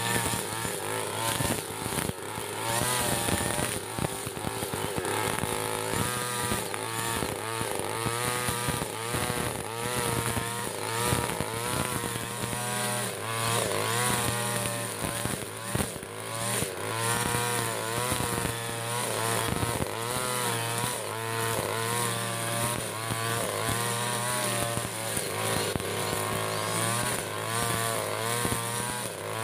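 Backpack brush cutter with a modified Koshi 63cc two-stroke engine running continuously while its line head cuts through thick grass. The engine pitch wavers up and down as it meets the grass. The throttle is held back from full because the flexible drive hose would be damaged if it were pressed hard.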